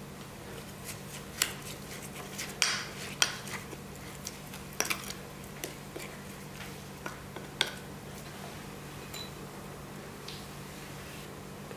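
Wooden spoon clinking and scraping against a ceramic bowl while stirring a chili-pepper seasoning sauce: a string of sharp, irregular clicks that trail off near the end, over a steady low hum.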